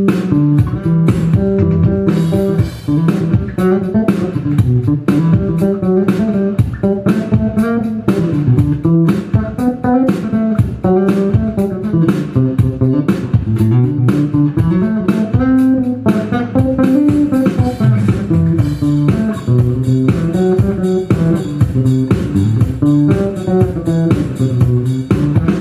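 Tobias Growler four-string electric bass played solo: a continuous, busy line of notes moving up and down in the low register, each note with a sharp, clicky attack.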